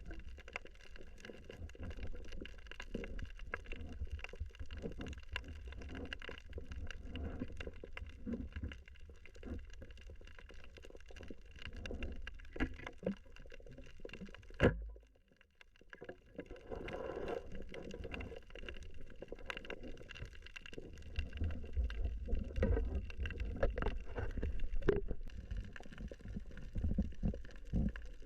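Underwater sound during a spearfishing dive: a low rumble of water movement with a running crackle of small clicks and faint steady tones. About halfway through there is one sharp snap, and then a brief lull before the rumble returns.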